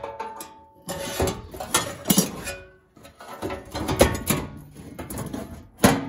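Irregular metallic clinks and clicks, some with a short ring, from a hand rivnut (nutsert) tool and steel parts as rivnuts are set in sheet metal.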